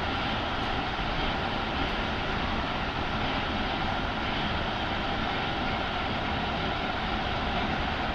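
Keikyu 1000 series electric train running at a steady speed: even rolling and wheel-on-rail noise with a faint, steady whine from the traction equipment.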